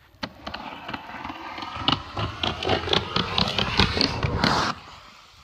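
Skateboard wheels rolling fast down the Mega Ramp. The rumble builds steadily, full of rapid clacks as the wheels cross the joints in the ramp surface, and drops away suddenly just before the end.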